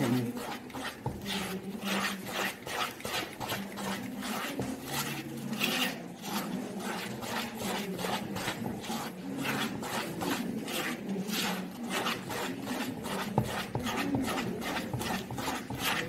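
Wire whisk beating cocoa cake batter in a plastic bowl: a rhythmic scraping rasp of wires against the bowl, about three strokes a second.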